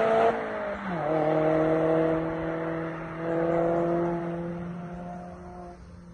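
Mazda MX-5 ND's four-cylinder engine heard through a Fox stainless sport exhaust. Its pitch drops sharply about a second in, as if the driver shifts or lifts off, then it holds a steady, slowly falling note that fades away near the end.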